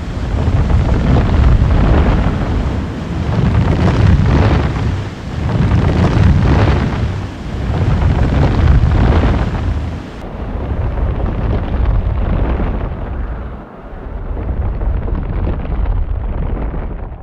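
Masaya volcano's lava lake churning: a deep rushing rumble that swells and fades in surges every couple of seconds, mixed with wind buffeting the microphone.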